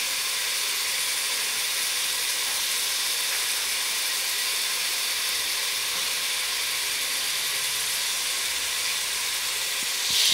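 Diced potatoes and carrots sizzling steadily in hot oil in an open pressure cooker.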